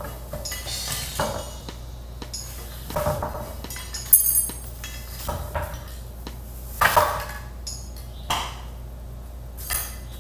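Metal parts clinking and knocking as they are handled and fitted together: about eight separate strikes, several ringing briefly, the loudest about four seconds in and again about seven seconds in.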